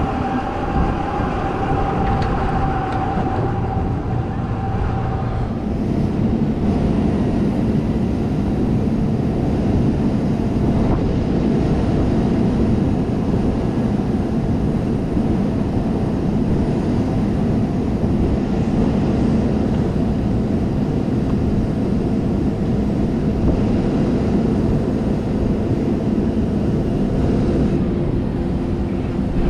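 A heavy engine running steadily, its tone changing about five seconds in from a higher hum to a deeper, heavier rumble.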